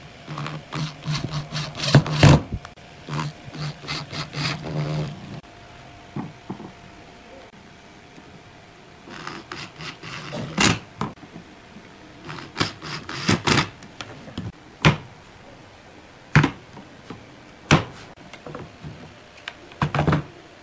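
Corded electric drill driving small screws into a metal hinge on pine boards, its motor running in short spurts with clicks and rattles from the screw and hinge. Later come several single sharp knocks of the wooden boards being handled and set on the bench.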